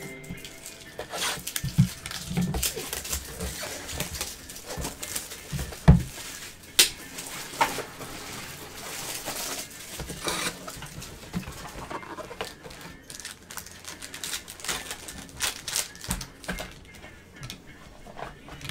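Cardboard box of 2021 Panini Certified football card packs being opened and handled: irregular taps, rustles and scraping, with a few dull thumps, the loudest about six seconds in.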